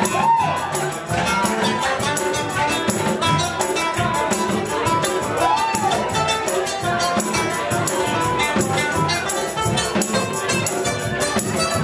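Live Latin-style band music: congas, large hand drums and cymbals keep a busy, steady rhythm under acoustic guitar and melody lines. A melodic line swoops up and back down twice, near the start and again about six seconds in.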